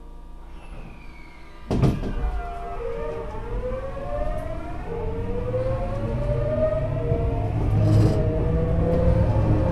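Hitachi GTO-VVVF inverter and traction motors of a Tokyu 9000 series train as it powers away from a stop. A sudden thump comes about two seconds in, then the inverter whine steps and glides upward in pitch through several tones while the motor hum grows louder with speed.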